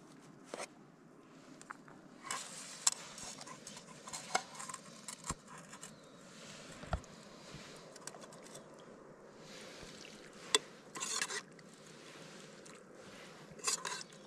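Spoons and dishes clinking and scraping now and then, with a few short rustles in between, as food is served and eaten.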